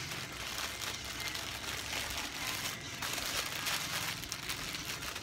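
Crinkly rustling and handling noise as shirts and their packaging are moved about, an irregular run of small crackles and rustles.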